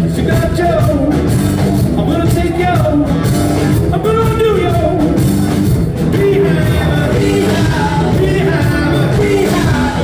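Live rock band playing loudly: drum kit, electric guitars and keyboard, with a sung vocal line over them.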